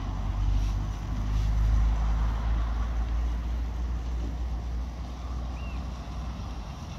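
Low rumble of wind buffeting the microphone, heaviest in the first few seconds and then easing a little.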